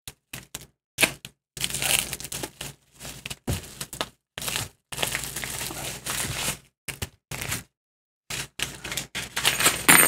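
Bubble wrap and brown kraft packing paper crinkling and crackling in the hands as an item is unwrapped, in short irregular bursts broken by abrupt silences.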